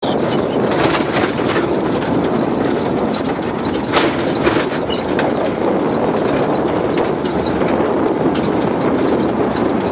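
Vehicle driving along a rough dirt track: steady engine and tyre noise with the body rattling and knocking over the bumps, a louder knock about four seconds in.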